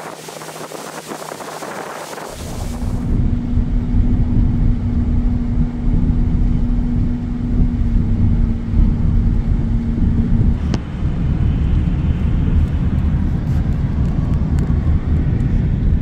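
Tour boat's motor running with the boat under way. Loud wind rumble on the microphone comes in suddenly a couple of seconds in, and a steady engine hum drops out about ten seconds in.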